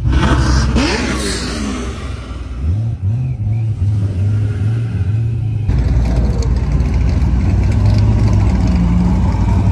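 Car engine revving hard, its pitch stepping up and down, then cutting abruptly about six seconds in to a steadier engine drone over a rushing noise.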